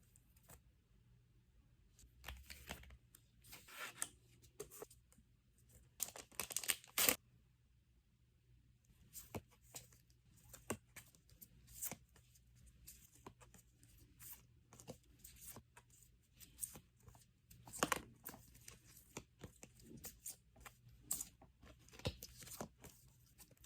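Packaging being torn open and crinkled by hand: a string of short, sharp rips and crackles, loudest about six to seven seconds in and again near eighteen seconds.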